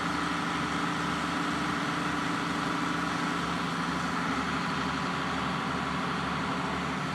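A vehicle engine idling with a steady, even hum.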